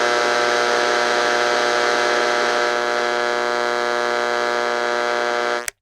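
A steady electric buzz or machine hum at one fixed pitch, with many overtones over a hiss. Near the end it sags slightly in pitch and cuts off abruptly.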